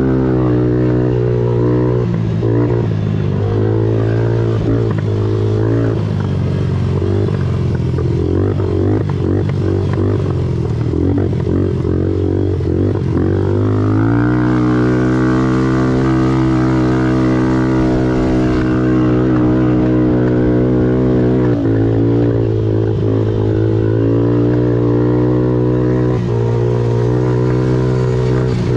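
Kawasaki KFX 90 youth quad's small single-cylinder four-stroke engine running hard through its CVT. The pitch wavers and drops off and on over the first half as the throttle is rolled back and reapplied, climbs sharply about halfway through, then holds high and steady with a couple of brief dips near the end.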